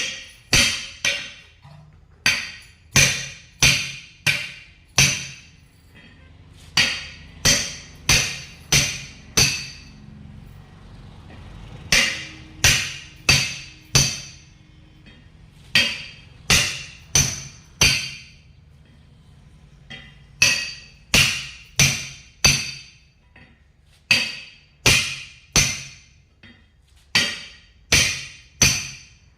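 Hammer blows on a truck tyre and its steel rim, struck in runs of four to six at about two a second with short pauses between runs; each blow rings briefly.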